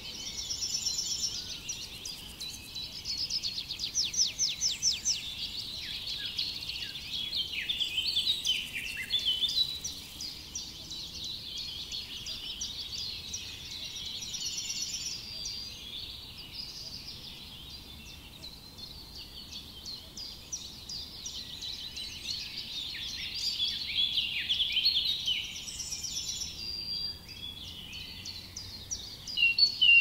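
Several songbirds singing at once: overlapping high chirps, whistles and rapid trills.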